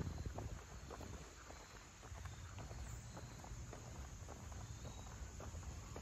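Woodland ambience: irregular soft crackling of footsteps through dry leaf litter, over a low rumble, with a few faint short high chirps of insects.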